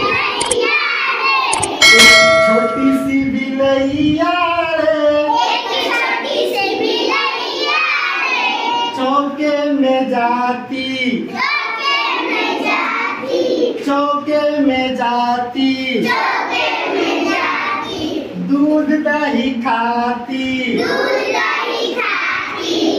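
A group of children singing a Hindi children's song together. A bright bell-like ding rings for about a second, about two seconds in.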